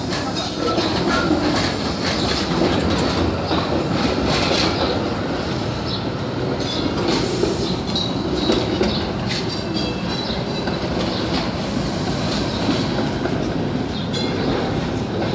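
TTC streetcar running past on the rails, its wheels clacking over the track and squealing briefly in high tones about midway.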